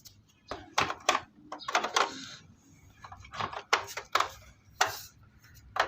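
Irregular clicks, knocks and short scrapes of a desktop computer's case cover being handled and cleaned, about a dozen uneven strokes.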